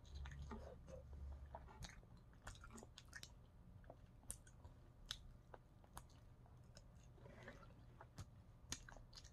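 Faint chewing of a buffalo chicken wing: a bite at the start, then soft chewing with scattered small mouth clicks.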